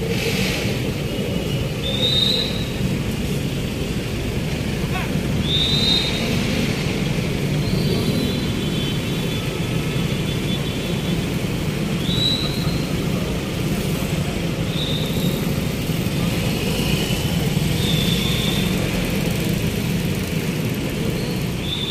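Steady street-traffic rumble of motorcycle and car engines, with short high chirps recurring every couple of seconds.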